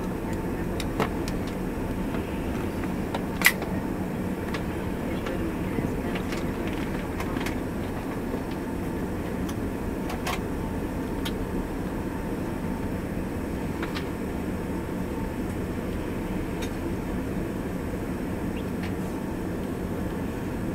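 Cabin noise aboard an Embraer ERJ145 rolling on the ground: a steady hum from its rear-mounted turbofan engines, with scattered light knocks and rattles as the wheels run over the pavement. One sharper click comes about three and a half seconds in.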